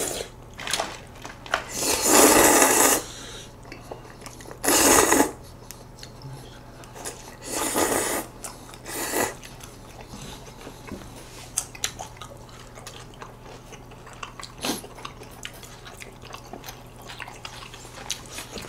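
Close-miked eating: jjajang noodles slurped in four loud, drawn-out sucks in the first half, then quieter chewing with small clicks of chopsticks.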